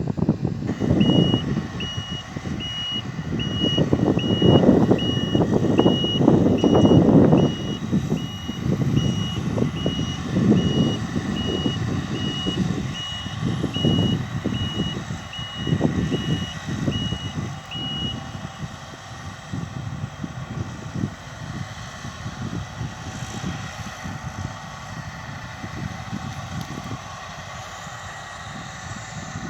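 Vehicle reversing alarm beeping steadily, a bit faster than once a second, and stopping about 18 seconds in, over low machinery rumble and wind noise.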